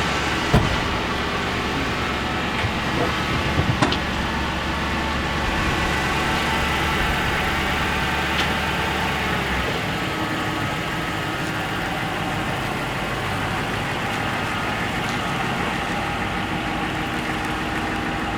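Ford Crown Victoria Police Interceptor's 4.6-litre V8 idling steadily, shortly after its first start following the rebuild. A few light knocks sound in the first four seconds.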